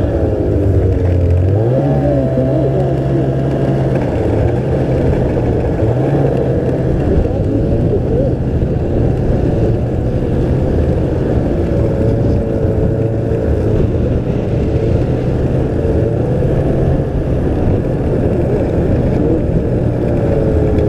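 Snowmobile engine running at trail speed, heard close up from the rider's seat. Its pitch dips and then rises again about two seconds in as the throttle eases and opens, then holds fairly steady over a constant rushing noise.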